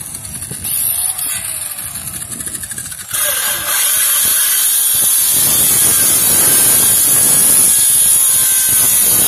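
Handheld electric circular saw cutting into a wooden log. It is quieter and uneven at first, then about three seconds in it gets suddenly louder and holds a steady high whine. The blade is worn out: the saw barely cuts and only makes smoke in the wood, and the disc needs replacing.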